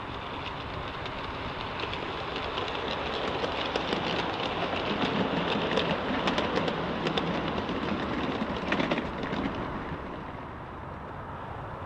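G scale model freight train rolling past on garden railway track: a clatter of wheels with many quick clicks that builds as the cars draw level, is loudest for several seconds, then fades away about ten seconds in.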